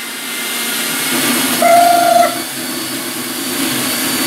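Single-serve personal blender running at full speed, churning a frozen coffee, ice cream and honey mix into a froth. A brief held tone sounds over the motor about one and a half seconds in and again at the very end.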